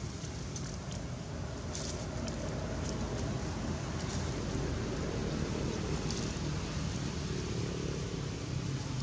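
Steady low outdoor rumble, like distant traffic or a motor, with a few faint dry-leaf rustles about two, four and six seconds in.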